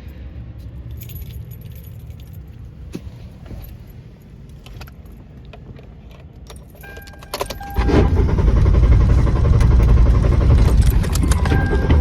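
Car keys jingle and click for several seconds, followed by a short beep. About eight seconds in, the car's starter begins cranking the engine loudly and keeps cranking without the engine catching. This is a no-start.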